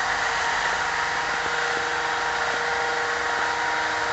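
A small engine-driven machine running steadily at constant high speed, an even drone with a fixed hum and no change in pitch.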